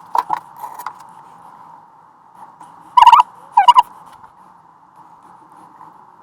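Hand tools on the wood stove door while a new gasket is worked in: a few light taps in the first second, then a loud cluster of sharp knocks about three seconds in and another shortly after, over a steady faint hum.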